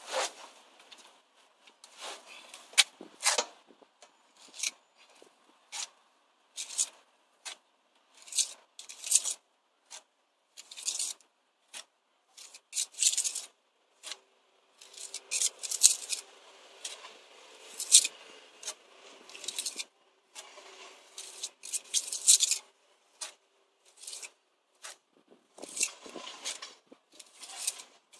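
Steel pointing trowel scraping mortar off a hawk and pressing it into brick joints: a run of short, irregular scrapes.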